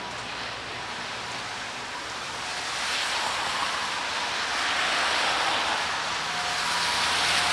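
Rain and traffic on a wet city street: a steady hiss that swells as vehicles pass, once about three seconds in and again near the end, with a faint low engine hum.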